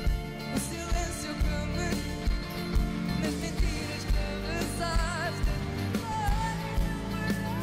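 Live band music: a steady drum beat of about two strokes a second under keyboard and guitars, with a wavering melody line about five seconds in.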